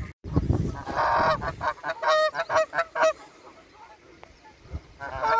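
Canada geese honking: a burst of calls about a second in, then a quick run of short honks, and another honk near the end.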